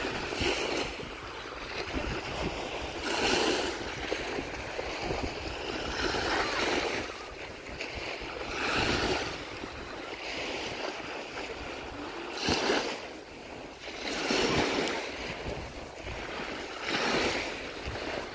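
Small Baltic Sea waves washing onto a sandy beach. Each one rises to a foamy hiss and falls back, about every two to three seconds.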